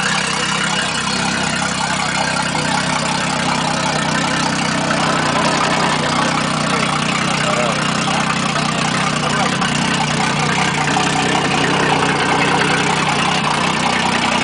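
Four Winns boat's sterndrive inboard engine idling steadily, running after being started on a newly fitted starter.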